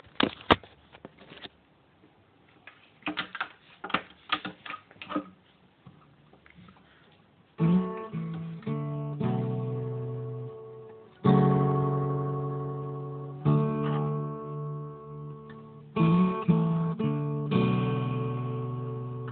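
A few seconds of scattered clicks and knocks from the phone being handled and set in place, then an acoustic guitar playing slow strummed chords, each one struck and left to ring out, about five strums in all.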